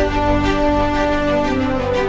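Background music: held melodic notes over a steady low bass.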